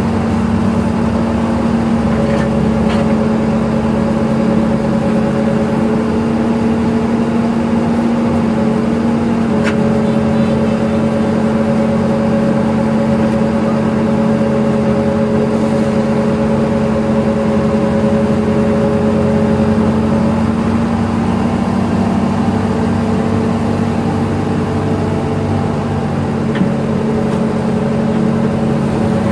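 Hydraulic excavator's diesel engine running steadily under digging load, with a steady hum from the hydraulics that shifts slightly as the boom and bucket work; a few faint knocks.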